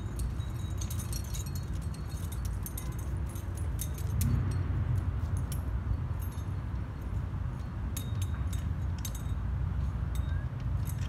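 Trad climbing rack of cams and carabiners clinking and jingling on a climber's harness as she moves up a crack, in scattered clusters of small metallic clinks over a steady low rumble.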